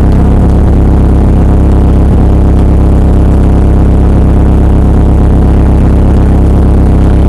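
Drift car's engine idling steadily, heard loud from inside the cabin.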